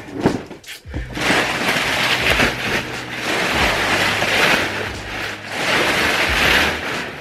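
Crumpled brown kraft packing paper rustling and crackling as it is pulled out of a cardboard shipping box by the handful, starting about a second in and coming in uneven surges.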